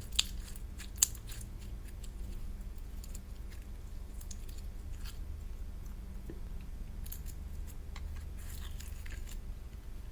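Slime being handled, making scattered sharp clicks and short crackly patches over a low steady hum, with two loud clicks in the first second.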